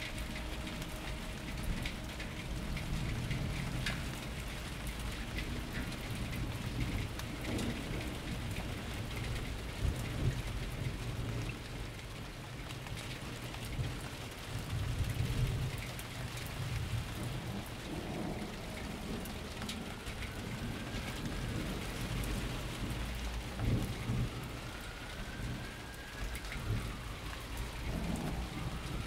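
Steady rain with rolling rumbles of thunder.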